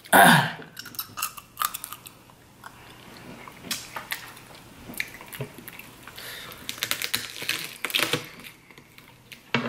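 Snow crab leg shells being cracked and broken apart by hand, with scattered sharp crackles and clicks that come thickest about eight seconds in, along with close chewing.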